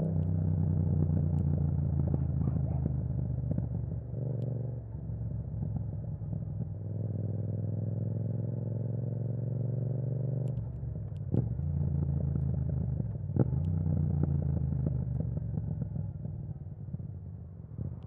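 Yamaha MT-07's parallel-twin engine running through an Akrapovic exhaust with the dB killer removed, ridden on the road. The engine note holds steady, climbs slowly in pitch, then drops suddenly about ten seconds in, with a couple of sharp clicks after it.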